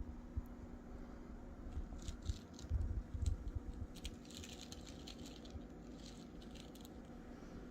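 Small meat grinder being worked by hand: light, uneven rattling and clicking, with a few soft low thumps about two to three seconds in.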